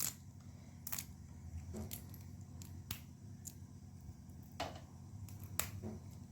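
Guava leaves being torn by hand and their stems pulled out: faint, scattered sharp snaps and clicks, about one a second, over a steady low hum.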